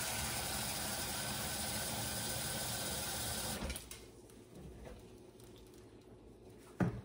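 Kitchen tap water streaming into a stainless steel bowl of cooked lasagna noodles in a metal sink, refilling it with cold water, shut off about three and a half seconds in. Near the end, a single sharp knock.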